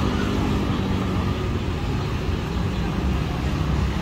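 Steady low rumble of a motor vehicle engine running, with general street noise.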